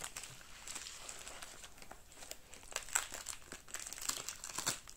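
Plastic bubble wrap crinkling and crackling as hands unfold it from around a small package, in irregular soft crackles with a few louder ones about three seconds in and near the end.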